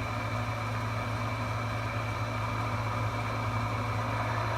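Steady low hum over a constant hiss from a switched-on Browning Mark III tube CB radio set with no station coming in.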